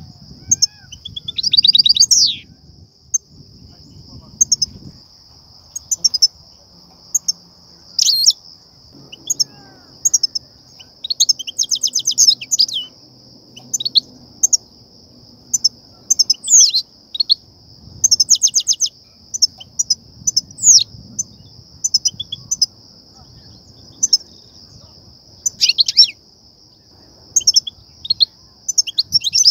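European goldfinches calling: scattered bright chirps and quick twittering, with a few rapid trilled series, over a steady high-pitched drone.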